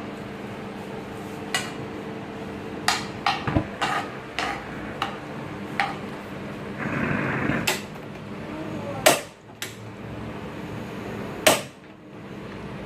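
Cooking utensils knocking and clinking against a pan and dishes: about a dozen sharp, irregular knocks, the loudest two near the end, over a steady low hum.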